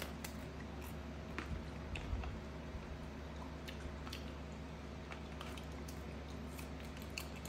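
A monkey peeling and eating small green fruits with its fingers: scattered small clicks and soft, wet chewing, over a steady low hum.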